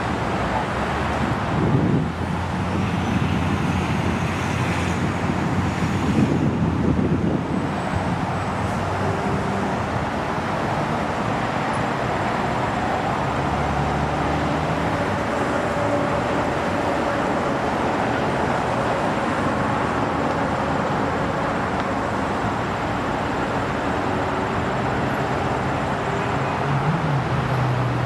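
Jet airliners' engines: a steady rumble and hiss as one airliner rolls along the runway after landing and the next comes in on approach, swelling briefly about two and six seconds in, with a faint high whine early on.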